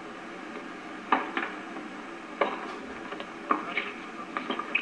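Tennis ball being hit and bouncing during a doubles point: a series of sharp pops, the first about a second in, over steady camcorder hiss.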